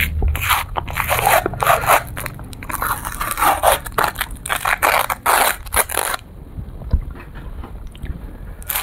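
Ice cream cone's wrapper crinkling and tearing as it is peeled off by hand, in quick crackly bursts that stop about six seconds in.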